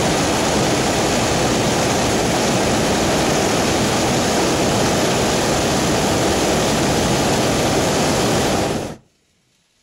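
Hot-air balloon's propane burner firing in one long, steady blast that cuts off suddenly near the end.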